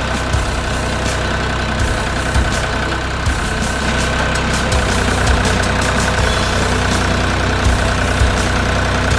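Fumetsu 30 HP tractor's 1.6 L three-cylinder diesel engine running steadily while the front-end loader lifts its bucket, with a steady high whine over it and occasional low thumps.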